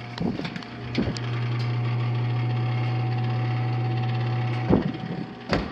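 Oven fan running with an unusual rattle, a steady mechanical hum that swells louder about a second in and drops away near the end, with sharp clicks at both points. The rattle is atypical for an oven fan.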